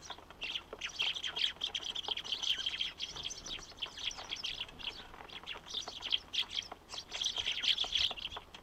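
Eurasian tree sparrows chirping in a dense, overlapping run of short, high chirps, with brief thinner patches about three and five seconds in.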